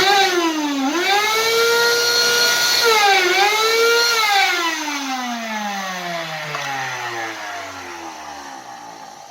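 Karcher WD 2 vacuum cleaner's motor switched on and roaring with a high whine, its pitch dipping briefly twice, then switched off and spinning down with a falling whine over several seconds. The loud hum is still there even though the motor bearings have just been replaced.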